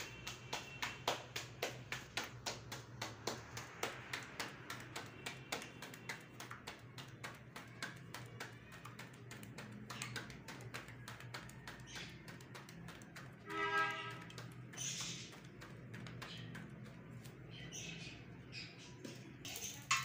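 Rolled potato-filled paratha dough being slapped quickly back and forth between bare palms, a rapid string of soft slaps over a steady low hum. A short bird call comes about two-thirds of the way through.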